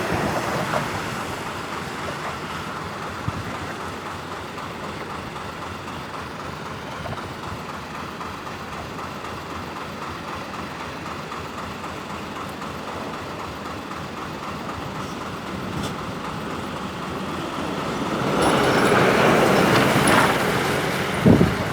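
Steady rumble of passing vehicles. It swells louder for a few seconds near the end as something passes close, followed by a couple of sharp knocks.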